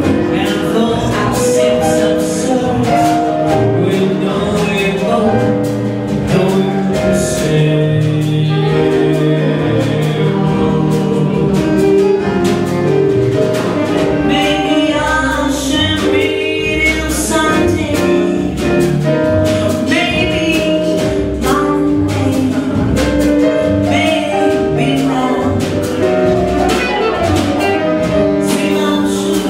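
Live small jazz band playing: double bass, piano and drums with cymbal strikes throughout, and a tenor saxophone taking up the melody from about halfway through.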